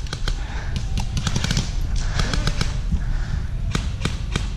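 Airsoft gunfire: scattered sharp snaps coming at irregular intervals, over a steady low rumble.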